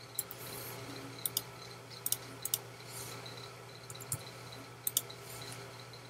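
Computer keyboard keystrokes and mouse clicks: scattered sharp clicks, some in quick pairs, over a low steady hum.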